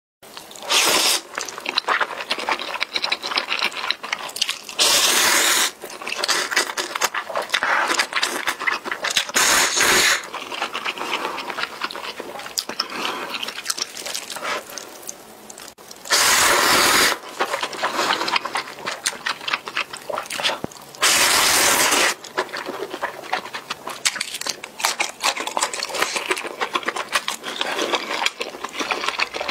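Close-miked eating sounds of spicy instant noodles: five loud slurps of about a second each, with wet chewing and mouth clicks in between.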